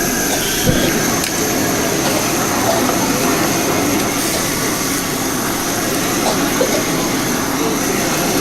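Steady, loud rushing noise of commercial kitchen equipment at a noodle stall, with one low knock a little under a second in.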